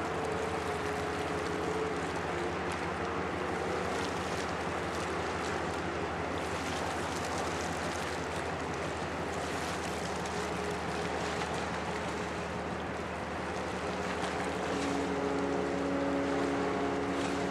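Steady low diesel drone of the passing container ship and its harbour tug, heard across the water, with a wash of wind and water noise. A higher hum comes in near the end.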